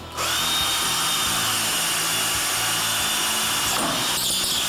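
Electric power drill starting up and running steadily with a high whine, drilling into a hollow clay-brick ceiling.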